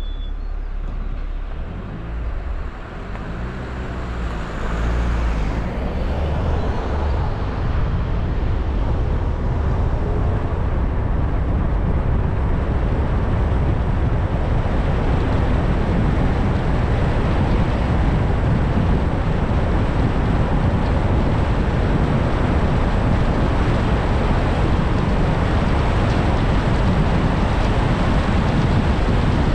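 Car driving on the road, with engine and tyre noise heavy in the low end. The engine's pitch shifts in the first few seconds, then the road noise builds to a steady level after about six seconds.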